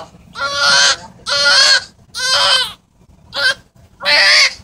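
Newborn baby crying in a run of short wails, about five in all, with a brief pause a little before the last two.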